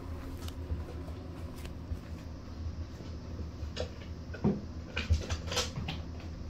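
Kitten's claws and paws scrabbling on a wooden board, with scattered light scratches and a few louder knocks and scrapes in the second half, over a steady low hum.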